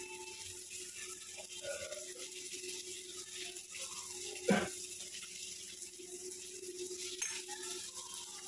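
Steel spoon clinking and scraping softly against a steel plate and bowl as sauce is spooned over fried fish, with one sharper knock about four and a half seconds in. A steady low hum runs underneath.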